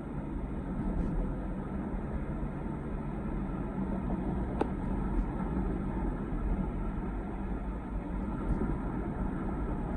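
Steady road and engine noise of a moving car, heard from inside the cabin, with a brief sharp click near the middle.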